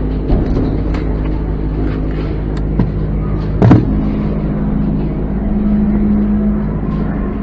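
A steady low drone of stacked tones runs under three sharp airsoft gun reports. The loudest report is about three and a half seconds in, with smaller ones just after the start and near three seconds.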